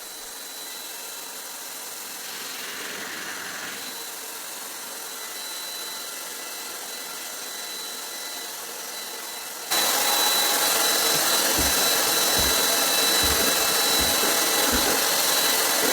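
Crain Airsled air blower running steadily with a thin high whine, turning much louder about ten seconds in. Several low knocks come in the last few seconds.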